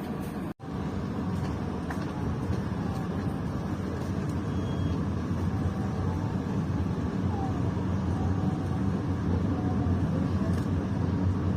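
Steady low rumble of a train running, growing slightly louder, broken by a momentary dropout about half a second in.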